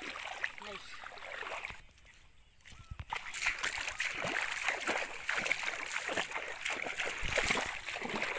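Shallow rice-paddy water splashing and sloshing as someone wades and handles a bamboo-framed net in it, with a brief quieter gap about two seconds in.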